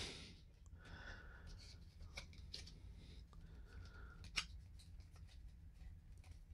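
Faint handling of baseball cards: soft rustles and light clicks as stacks of cards are moved about, with one sharper tap about four seconds in.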